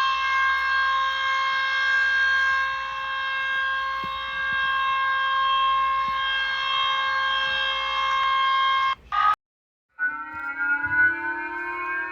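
Warning siren holding one steady tone for about nine seconds, then cut off abruptly. After a brief silence a second siren starts low and slowly winds up in pitch.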